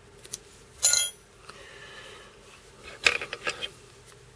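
Small metal fly-tying tools clinking and clicking as they are handled: one sharp burst about a second in and a short run of clicks around three seconds in.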